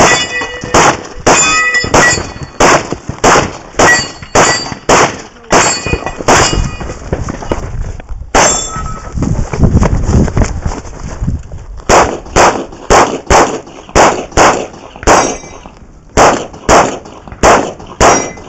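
Glock pistol fired in rapid strings, about two shots a second, with steel targets ringing after several hits. The shooting stops for a few seconds midway, then another fast string follows.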